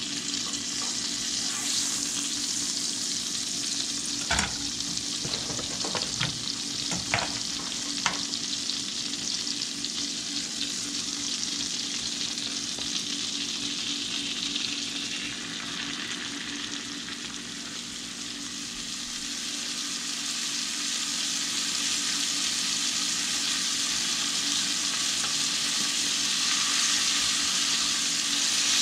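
Flour-coated bluegill fillets frying in butter in a cast-iron skillet, a steady sizzle that grows louder over the last ten seconds or so. A few sharp knocks against the pan come about four to eight seconds in.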